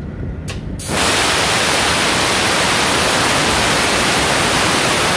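Semi truck air brake tanks being drained through the pull-cable drain valve: a short click, then from about a second in a loud, steady hiss of compressed air rushing out.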